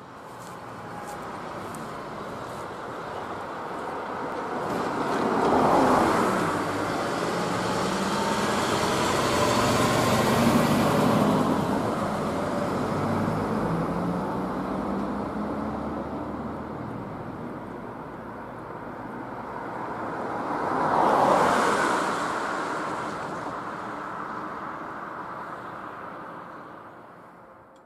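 Road vehicles driving past: a car and a box truck go by between about five and thirteen seconds in, the truck's engine note lingering as it passes, and another car passes about 21 seconds in, each rising and then fading away.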